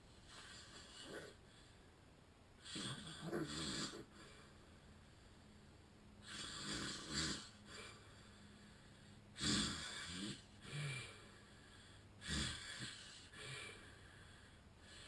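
A man with sleep apnea snoring in his sleep: a run of uneven snores a few seconds apart.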